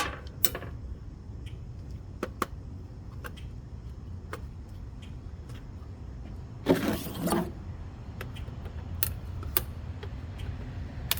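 Hand tools and parts being worked during a heater teardown: scattered sharp clicks and knocks, with one louder rasping noise lasting under a second about seven seconds in, over a steady low rumble.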